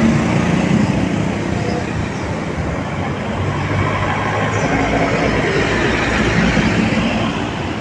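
Street traffic: vehicles passing in a continuous wash of engine and road noise, with engine hum coming and going.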